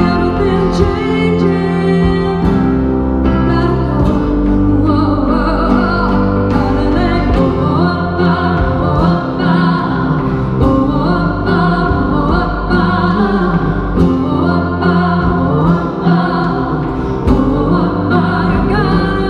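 Live band music with a singing voice over sustained instrumental chords.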